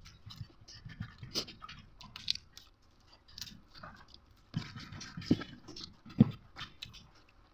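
Close-up eating sounds of someone chewing fried bird: irregular wet clicks and smacks, with two louder ones about five and six seconds in.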